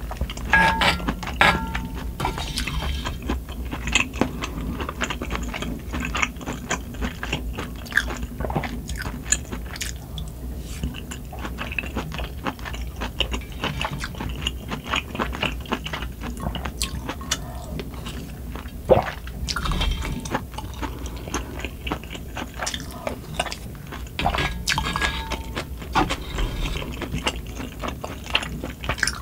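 Close-miked eating of spicy sundae-gukbap (blood sausage and pork soup): slurps of broth from a spoon, chewing of the meat, and the spoon clicking and scraping in the pan, with many small irregular clicks. A steady low hum from wind and rain lies underneath.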